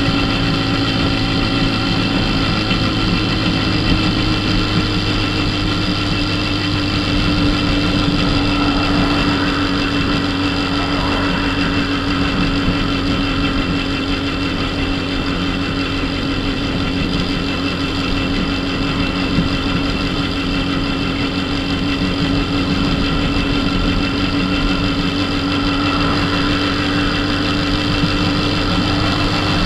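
Dafra Super 50cc moped engine running at a steady cruising pitch on the move, with road and wind noise.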